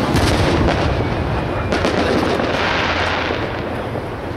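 Aerial firework shells bursting in the sky: a loud bang right at the start and another about a second and a half in, each trailing off slowly.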